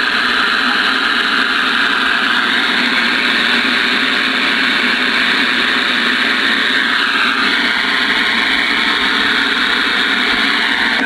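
Steady static hiss from a Connex CX-33 ten-meter radio's receiver through its speaker, with faint whistles sliding in pitch about two seconds in and again about seven seconds in.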